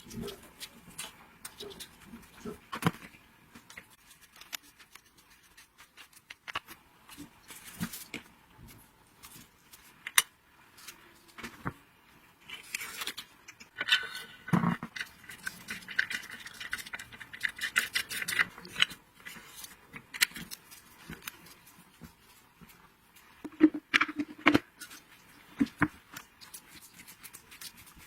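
Irregular clicks, clinks and light knocks of hand tools and small metal parts being handled, with a busier stretch of clatter about halfway through.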